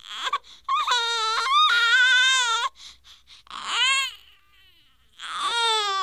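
Newborn baby crying in repeated high wails: a long cry about a second in, a short one around four seconds, and another long one starting near the end.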